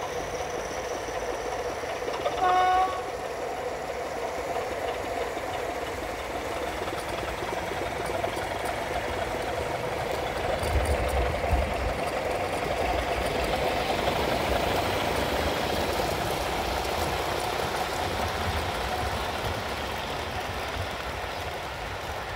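Sound-fitted model diesel locomotive running, its speaker playing a steady diesel engine hum, with one short horn blast about two and a half seconds in.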